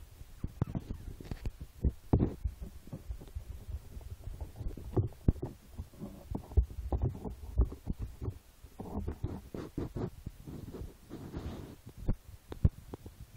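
Irregular soft low thumps and rustling: a five-week-old Boston Terrier puppy scrambling about on blankets in a plastic laundry basket.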